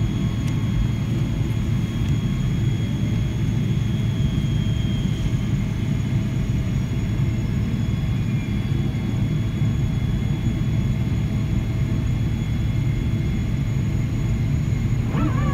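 Airliner cabin noise while the plane taxis after landing: a steady low rumble of the jet engines and airframe, with faint steady whines above it. Right at the end a clear steady tone begins.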